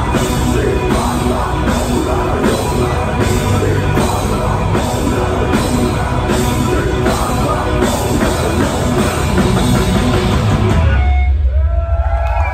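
Heavy metal band playing live and loud: distorted guitars with drums keeping a steady beat. A little over ten seconds in, the drums and cymbals stop and a low bass note rings on with a few sliding guitar tones.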